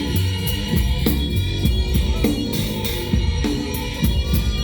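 Rock band playing live, an instrumental stretch with no vocals: a drum kit keeping a steady beat under a repeating low bass line and guitar.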